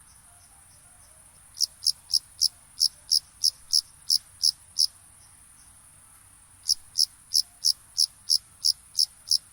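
Crickets chirping at night: one cricket gives two runs of loud, evenly spaced chirps, about three a second, with a pause of about two seconds between them, over a steady high-pitched trill.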